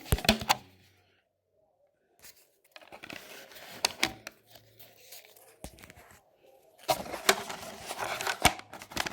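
Rubber bands being taken off and re-stretched across a cardboard box: rustling of cardboard and rubber with sharp clicks, in irregular stretches.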